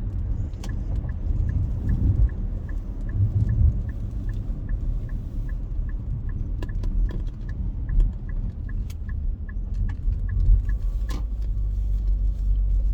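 Car cabin with steady road and engine rumble while a turn-signal indicator ticks evenly, about two or three ticks a second, stopping about ten seconds in; a single sharp click comes near the end.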